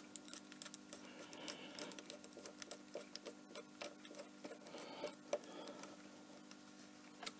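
Faint, irregular clicking and ticking of small metal parts: a valve-core tool turning an inner valve core into a refurbished air-conditioning high/low-pressure valve port, with a steady low hum underneath.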